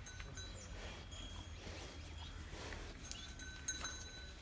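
Quiet livestock-farm background: a steady low rumble with faint, scattered short high chirps and ticks.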